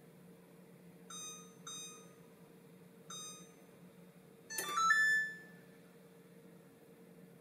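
Oven control panel beeping as its keys are pressed: three short beeps while the preheat temperature is set, then, about four and a half seconds in, a louder and longer multi-note chime as baking starts. A faint steady hum sits underneath.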